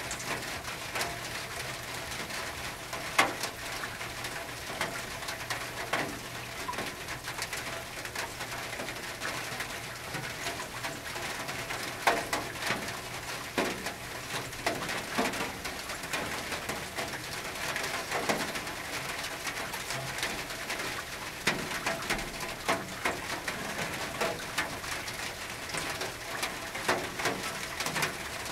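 Rain falling on a tin roof: a steady hiss with heavier drops striking the metal at irregular moments, and a bird cooing in the background.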